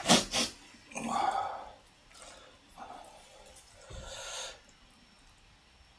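A person blowing his nose into a tissue: a sharp snort right at the start and a second one about a second in, followed by a few faint breaths.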